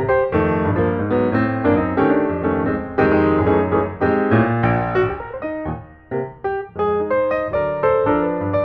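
Background piano music, a steady run of quick notes, dipping briefly about six seconds in.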